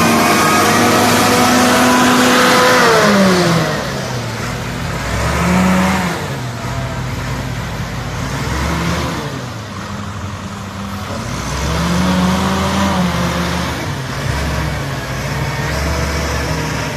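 Heavy earth-moving machine's diesel engine working: held at high revs for the first few seconds, then dropping, and afterwards rising and falling several times as the load changes.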